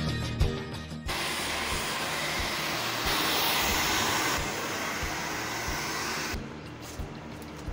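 A hair dryer blowing with a steady rush that starts about a second in, swells louder in the middle and stops near the end, over background music with a steady beat.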